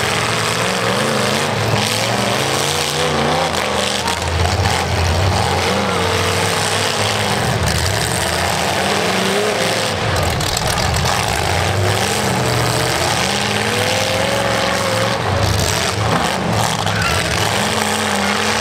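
Demolition derby car engines revving hard and rising and falling in pitch as the cars push against each other, wheels spinning in the dirt.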